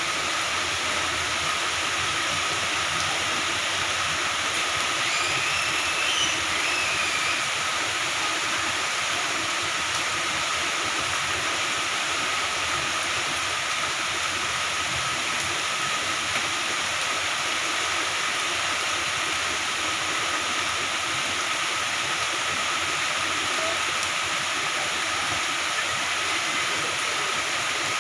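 Moderate to heavy rain falling steadily, an even hiss that holds at one level throughout.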